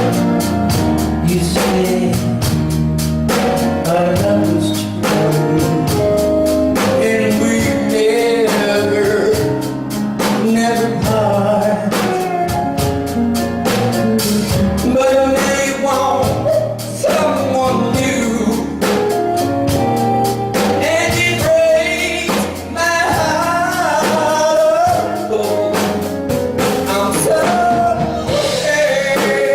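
A singer performing a song with band backing: a sung melody over a steady drumbeat.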